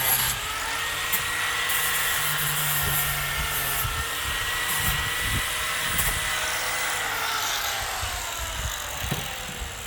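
Cordless power tool's motor whining steadily under load as it works a clamped steel piece hot enough to turn it blue. The pitch wavers slightly and sags toward the end.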